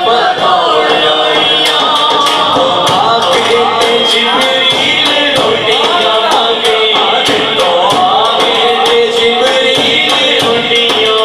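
Man singing a devotional Islamic kalam into a microphone, accompanied by a daf frame drum and hand claps. They keep a steady beat of about three strokes a second that comes in about a second and a half in.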